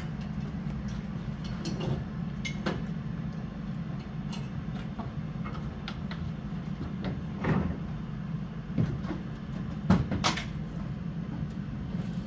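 Scattered metal knocks and clanks of fairground ride parts and aluminium chequer-plate platform panels being handled and walked on during assembly, the loudest about ten seconds in, over a steady low hum.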